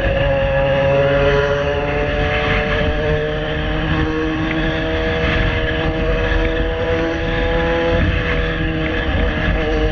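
Yamaha XJ6 inline-four motorcycle engine with an aftermarket exhaust, running loud and steady under way at cruising revs. Its pitch drifts slowly down, then shifts about eight seconds in, over a low rush of wind.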